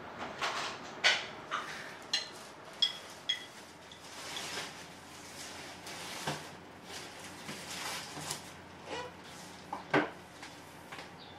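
Metal forks clinking and scraping on a ceramic plate: a string of sharp clinks, some with a brief high ring, then softer handling sounds and one louder knock about ten seconds in.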